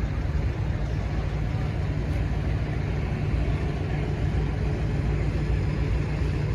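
Steady low rumble of boat engines running.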